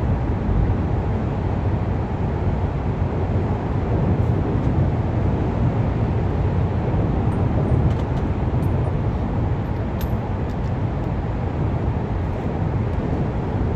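Steady rumble of road traffic, with a few faint clicks in the second half.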